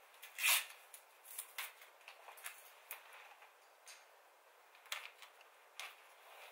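Masking tape being pulled off its roll and pressed by hand along a film seam: several short, quiet rustles, the loudest about half a second in.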